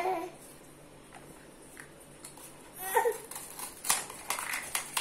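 Small plastic toy-kitchen pieces clicking and tapping together in a child's hands, with several sharp clicks in the last second or so. There is a short child's vocal sound about three seconds in.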